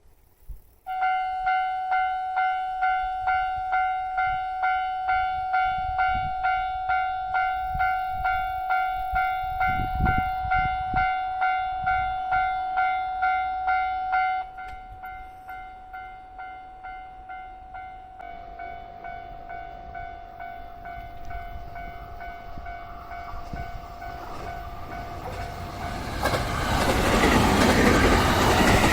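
Japanese level crossing warning bell ringing, an electronic two-a-second clang that drops much quieter about halfway through and keeps going. A train approaches, its rumble rising until it passes loudly near the end.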